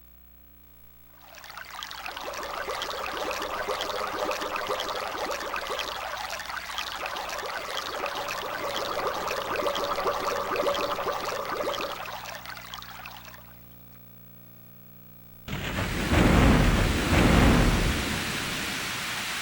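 Karaoke machine sound effects: a steady rain-like hiss for about twelve seconds that fades out, then after a short pause a sudden low thunder rumble with two loud peaks over rain noise.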